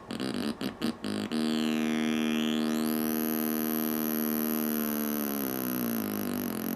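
Synthesizer bass patch (the ROLI Noise app's Classic Acid Bass preset) played through a Bluetooth speaker: a few short staccato notes, then a long held note with a sweeping filter, its pitch wobbling up and down near the end.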